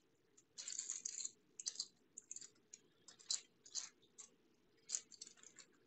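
Plastic plant packaging crinkling and rustling as it is handled, in short irregular bursts.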